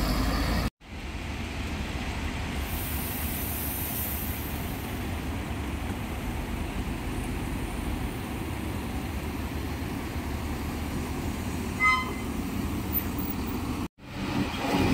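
Mercedes-Benz 1626 coach's diesel engine running as the bus pulls away at low speed, a steady low rumble. A brief high-pitched tone sounds about twelve seconds in.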